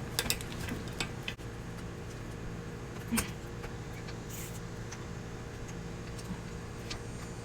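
A few light metallic clicks and taps as motorcycle rear-axle and chain-adjuster parts are fitted by hand, over a steady low hum.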